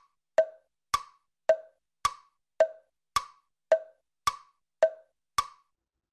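Tick-tock countdown timer sound effect: hollow, wood-block-like clicks about two a second, alternating between a lower and a higher click. Ten clicks, stopping shortly before the end as the count reaches ten seconds.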